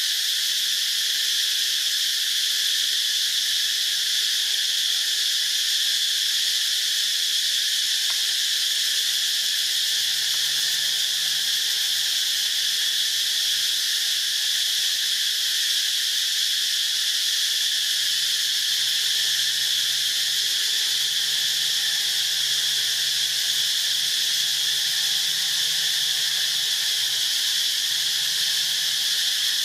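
Steady insect chorus: a continuous high-pitched shrill buzz that never lets up.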